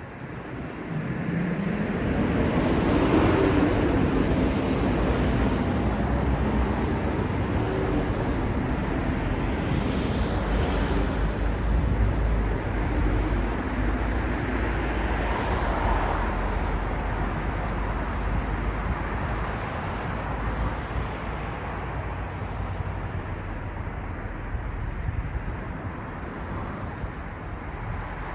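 City road traffic: vehicles passing in a steady low rumble, swelling about a second in with a rising engine note, then easing slightly toward the end.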